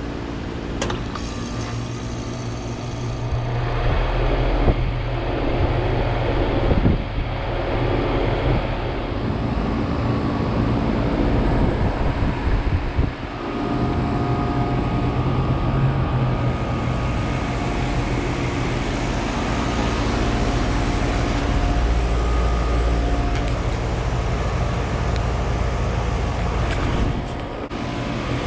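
Ruud Achiever 14 SEER heat pump outdoor unit starting up and running: a low mechanical hum from the compressor and fan builds about four seconds in, then runs steadily.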